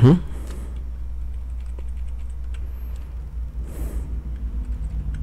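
Steady low hum of a desk microphone's background, with faint scattered clicks of keyboard keys and a pen tablet as tools are switched during digital inking. A brief voice sound cuts in right at the start.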